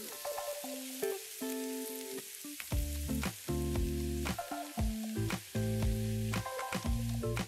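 Food frying in oil in a pan, a steady sizzling hiss, with background music playing over it.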